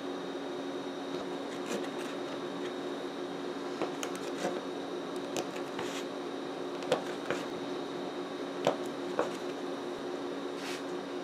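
Chef's knife cutting through firm, chilled fudge and knocking on a wooden cutting board: about ten short, sharp knocks, the loudest about seven and about nine seconds in, over a steady background hum.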